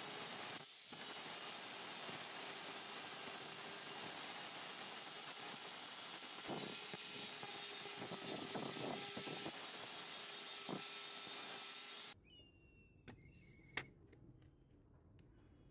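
Angle grinder with a flap disc running and sanding paint and rust off a sheet-metal casing: a steady whine with grinding noise that cuts off suddenly about twelve seconds in. After that come only faint clicks of a screwdriver working on a rusty metal disc tray, one of them sharper.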